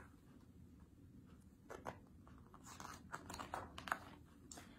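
Faint rustling of a picture-book page being turned, with a few soft paper crinkles and taps in the second half.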